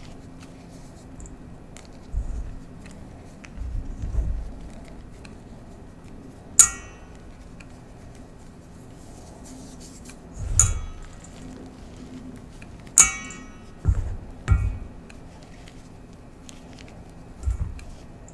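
Hands crushing and squeezing clumps of gym chalk powder in a stainless steel bowl, with soft crunching and dull thumps. Three times, about 7, 11 and 13 seconds in, something knocks the bowl sharply and it rings briefly like a bell.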